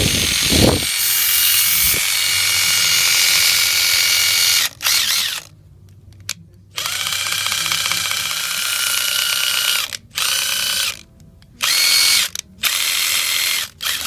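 Makita TD132D cordless impact driver running free in a series of trigger pulls: one long run, then several shorter ones that stop and restart, some spinning up with a rising whine. The unit is sold as making an abnormal noise.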